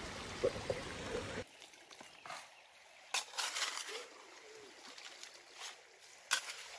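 A creek trickling, with a few short scrapes and rattles of a shovel digging into wet creek gravel and dumping it into a plastic bucket.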